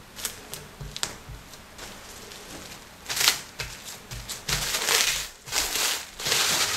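Plastic cling film crinkling as hands fold it around a mound of tart pastry dough. A few light taps and rustles at first, then dense, louder crinkling in bursts from about halfway through.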